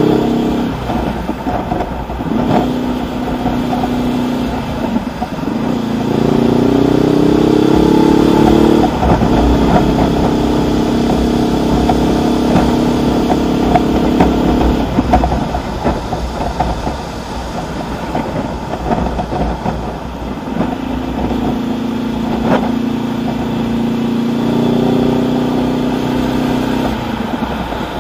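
Honda CB500X's 471 cc parallel-twin engine through a Mivv Suono aftermarket exhaust, heard from the saddle while riding: it pulls up with rising pitch, changes gear about half a second in and again about nine seconds in, runs steadily for a few seconds, backs off, then pulls up again in the last third. Wind and traffic noise run underneath.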